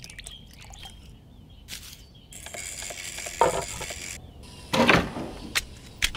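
Wooden planks scraping and knocking as they are handled on a woodworking machine table: a long scrape in the middle, a louder scrape about five seconds in, then a quick run of light knocks.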